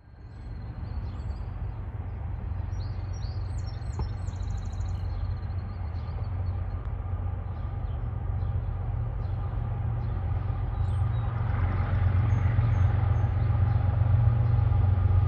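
Freight train approaching behind a CSX GE ES44AC diesel locomotive: a low engine rumble that grows steadily louder, with birds chirping now and then.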